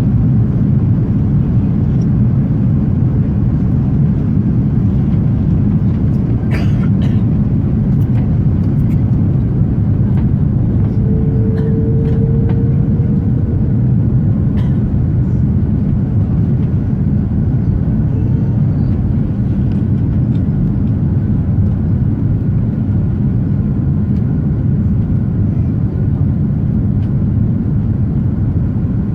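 Steady roar of an airliner's engines and rushing air on approach, heard inside the cabin. There are a few light clicks about a quarter of the way in and a brief steady tone about halfway through.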